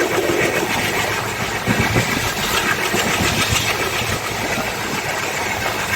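ALCO diesel locomotive engine running steadily.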